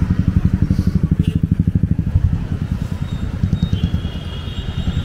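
Motorcycle engine running close by with a rapid, even throb, easing after about two seconds, in street traffic.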